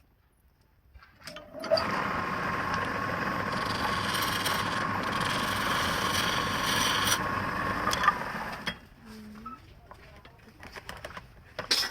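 A woodturning lathe spinning a wooden root while a tool cuts into it: a steady grinding whir with a steady whine that starts about two seconds in and stops about nine seconds in, followed by faint knocks and a sharp click near the end.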